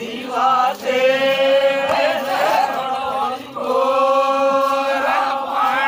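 Vagadi folk song sung in long, drawn-out held notes: two sustained phrases, each sliding up into its note at the start and with a short break between them.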